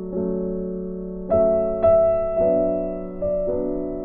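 Background piano music: soft chords and notes struck roughly once a second, each left to ring and fade.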